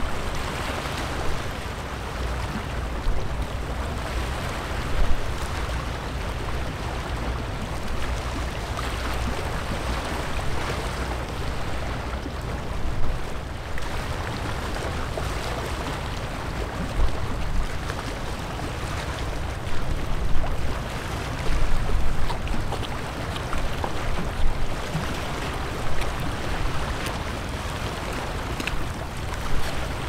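Small sea waves lapping and sloshing at the shore, coming and going in irregular swells, over a steady low wind rumble on the microphone.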